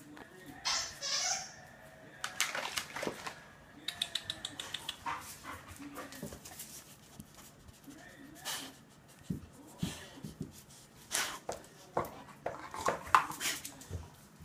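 Dogs playing with new toys: scattered clicks and rustles, with occasional whines and short barks.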